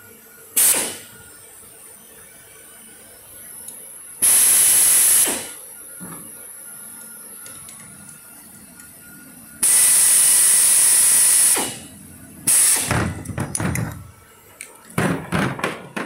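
Bursts of hissing from pressurised gas, two of them held for about one and two seconds, then a quick run of clicks and metallic knocks near the end.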